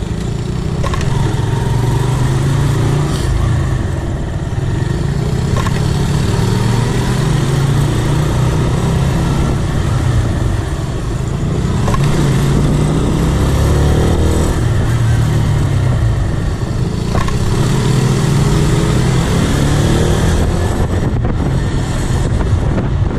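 Motorcycle engine running as the bike rides along at low speed, the revs rising a few times with the throttle, over a steady haze of road noise.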